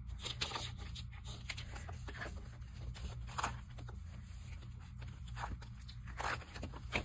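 Paper rustling and scraping as the stiff pages of a ring-binder glue book are turned and handled, in short irregular strokes, the loudest about six seconds in.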